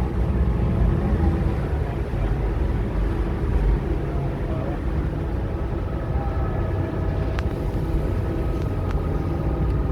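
Ferry engine running steadily, a low drone with a steady hum, heard on board.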